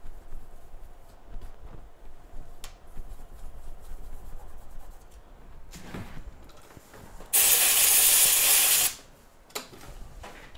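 A short aerosol spray hiss, about a second and a half long, past the middle, amid faint clicks of small tools being handled: the chip is being cleaned before it is reballed.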